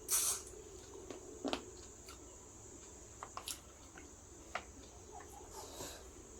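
Close-miked eating sounds: soft wet clicks and squishes of chewing a mouthful of rice and curry. A louder smacking burst comes at the very start and another about a second and a half in.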